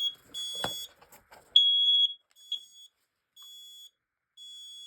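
Smoke alarms sounding their high-pitched test beeps: half-second beeps about a second apart, loud at first and much fainter in the last two seconds. A short knock lands under a beep a little before a second in.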